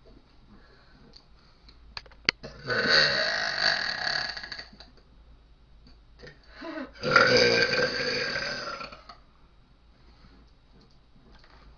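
Two long, loud deliberate burps, each lasting about two seconds, the first a few seconds in and the second about seven seconds in, with a sharp click just before the first.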